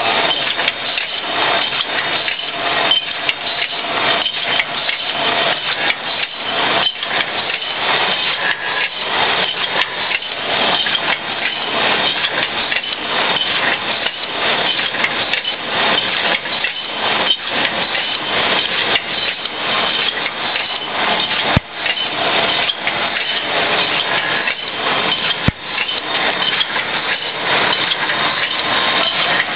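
Automatic multicolour screen printing machine running: a steady mechanical clatter of many rapid, irregular clicks and knocks, with two sharper knocks in the second half.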